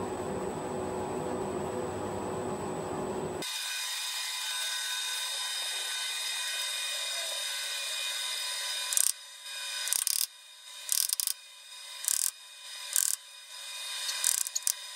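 Copper-headed mallet knocking the welded wheel rim clamped in a lathe chuck, about one blow a second from about nine seconds in, tapping the wheel true against a dial indicator. A short rub rises between the blows. A steady shop noise fills the first few seconds and cuts off suddenly.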